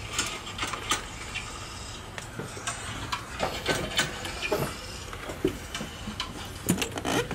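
Scattered light clicks and clinks of hand tools and metal engine parts being handled, over a faint steady low hum.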